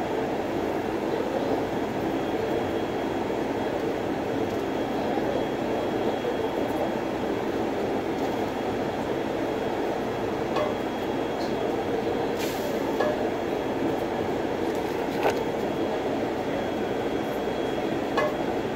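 Steady rushing noise of a commercial kitchen exhaust hood fan running, with a few sharp clicks from handling at the counter.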